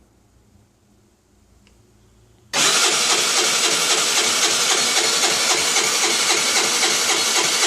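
Baotian Tanco 50cc four-stroke scooter engine being cranked on its electric starter, cutting in suddenly about two and a half seconds in and churning on loud and steady with an even pulsing, in a hard start.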